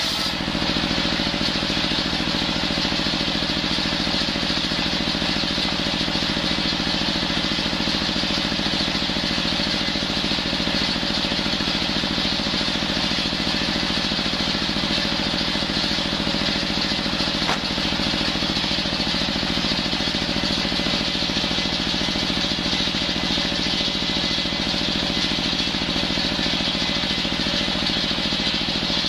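Engine-driven circular saw bench running steadily, its large blade sawing coconut wood into rafter stock.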